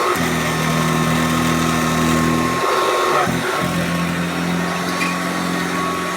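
Hoover Junior 1224 upright vacuum cleaner running, its motor and beater brush giving a steady hum. About halfway through the hum briefly breaks up and comes back slightly higher in pitch.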